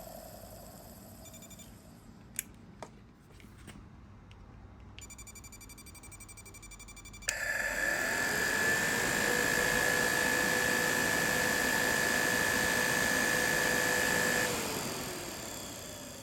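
Kawasaki ZX-12R radiator cooling fan's electric motor switched on: it spins up at once and runs steadily with a high whine over a rushing of air for about seven seconds, then is switched off and winds down. This is the fan whose abnormal noise is being checked. A couple of sharp clicks come before it starts.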